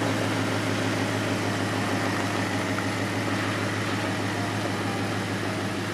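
Ford Mustang GT's Coyote 5.0 V8 idling steadily, a low even hum.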